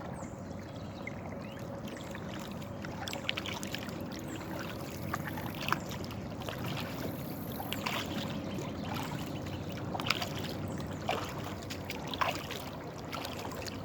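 Kayak on a lake: water trickling and splashing around the hull, with light knocks and clicks every couple of seconds.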